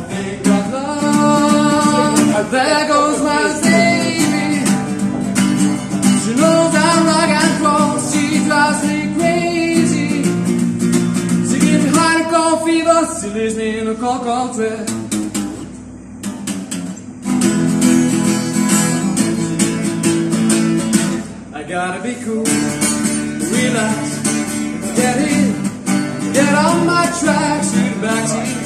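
A man singing while strumming an acoustic guitar, a live solo performance. The playing drops off briefly twice around the middle.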